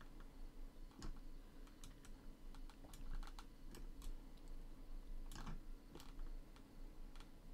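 Faint, irregular clicking of a computer keyboard and mouse in use, about a dozen scattered clicks over a low steady hum.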